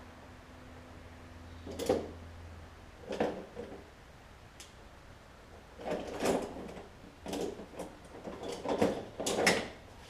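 Metal hand tools clinking and clattering in short, irregular bursts as a smaller tool is fetched and worked against the mower engine's brake spring.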